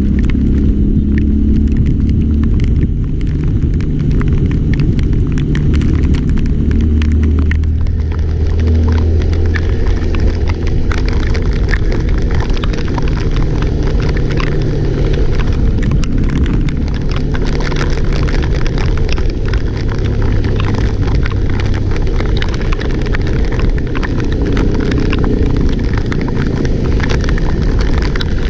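A vehicle engine running while moving, its pitch shifting, under a heavy low rumble and crackle of wind buffeting the microphone.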